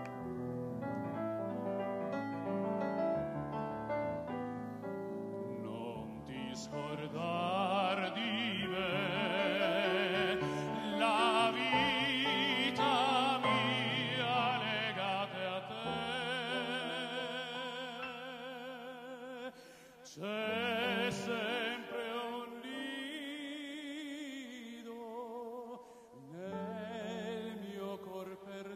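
Live operatic-style music: a voice or lead line with wide vibrato over sustained keyboard chords. It builds about a quarter of the way in and drops back briefly twice in the second half.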